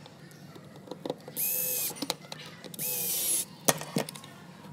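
Cordless electric screwdriver running in two short bursts of about half a second each, driving screws into a multimeter's plastic case. Its motor whine rises and falls as each screw seats. A couple of sharp clicks come near the end.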